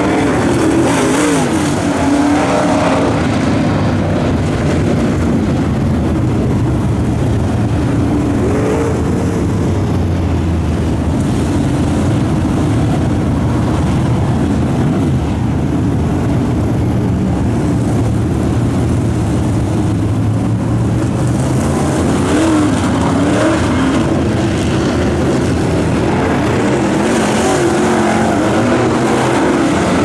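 Dirt track race car engines running at speed as the cars lap the track. The engine note rises and falls as the cars come round and pass by.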